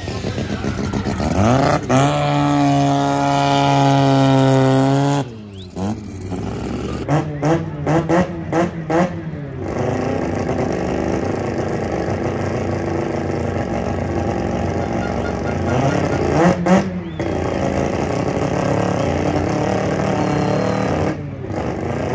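Drag-race car engine held at high revs during a burnout, cutting off sharply about five seconds in. It follows with a quick series of short throttle blips, then settles into a steady idle while the cars stage at the line, with a couple more sharp blips near the end.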